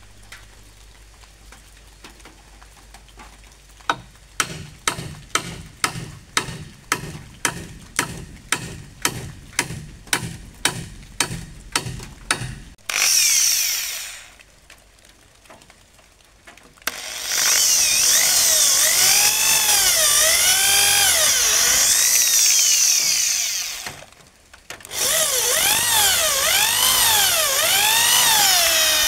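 A run of about seventeen even knocks, two a second, then a Makita electric drill boring into a hardwood beam, likely drilling a pilot hole. The drill spins briefly, then runs twice for several seconds with a short stop between, its motor pitch rising and falling with the trigger.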